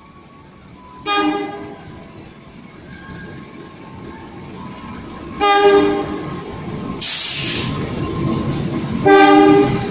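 A CC 201 diesel-electric locomotive sounds its horn three times: a short blast about a second in, then two longer blasts, the last near the end. Under the horn, the engine's rumble grows louder as the locomotive comes closer, and there is a brief hiss about seven seconds in.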